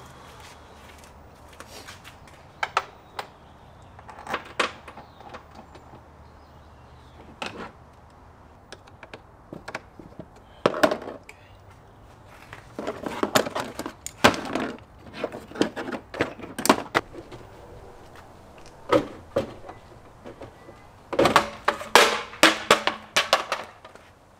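Irregular clicks, knocks and clunks of hand tools and parts being handled around an engine bay, bunched most densely a little past halfway and again near the end.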